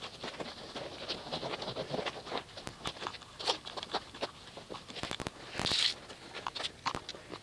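Wash mitt being worked over wet, soapy car paint: irregular soft rubbing, patters and drips, with one longer swish just before the six-second mark.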